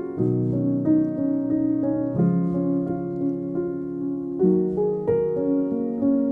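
Instrumental background music: slow, held chords with a melody moving over them, the chord changing about every two seconds.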